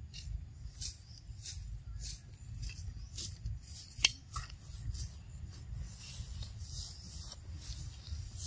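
A macaque crunching corn kernels off the cob: a run of crisp bites and chews roughly twice a second, with one sharper crack about four seconds in.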